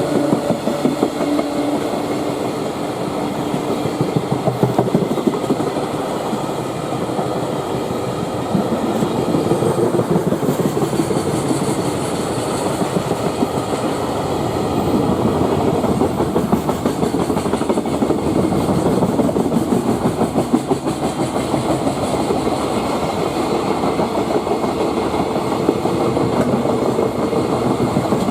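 Freight train of container wagons passing at speed, a steady loud run of wheels clattering over the rail joints.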